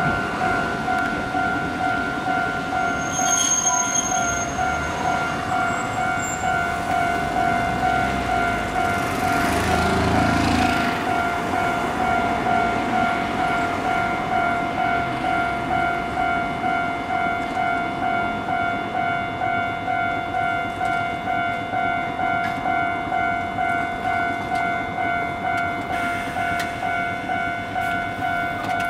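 Japanese railway level-crossing alarm ringing with a steady, evenly repeated electronic ding while its red lights flash. A Hankai tram rolls in with a low rumble about nine to eleven seconds in.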